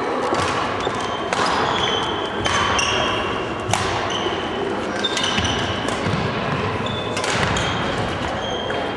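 Badminton rally: rackets striking the shuttlecock in sharp cracks about once a second, with sneakers squeaking briefly on the wooden court floor between shots.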